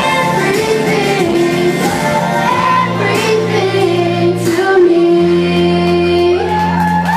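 A boy singing into a microphone over backing music, holding long sustained notes.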